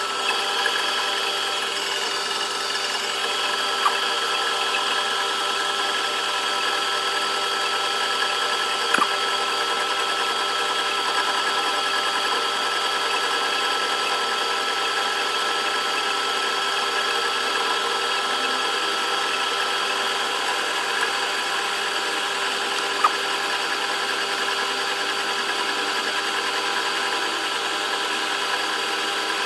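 A metalworking machine running steadily: an even mechanical hum with a whine layered over it, and a few sharp ticks.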